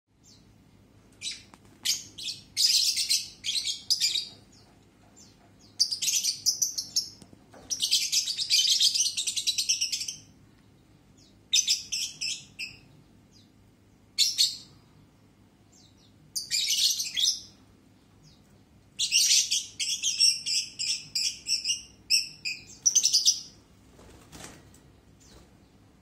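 Caged lovebirds chattering shrilly in bursts lasting from half a second to a few seconds, with short pauses between them. The longest and busiest bout comes about two-thirds of the way through.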